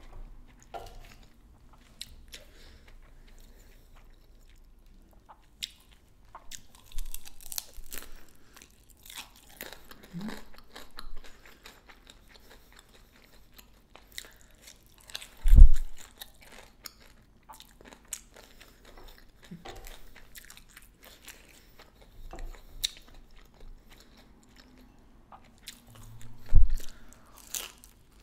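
Close-up chewing and crunching of pan-fried kimchi dumplings and chewy noodles, a bite or crunch every second or so. Two heavy low thumps, about halfway through and near the end, are the loudest sounds.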